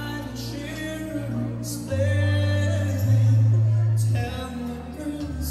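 A song with singing over band accompaniment, led by a strong bass line whose notes change about every one to two seconds.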